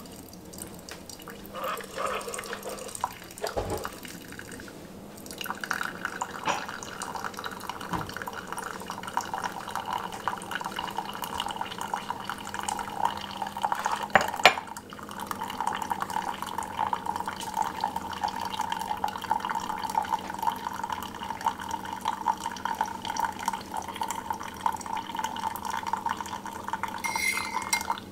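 Keurig K-Slim single-serve brewer dispensing coffee in a thin stream into a ceramic mug: a steady trickling splash over a low hum. A sharp clink sounds about halfway through.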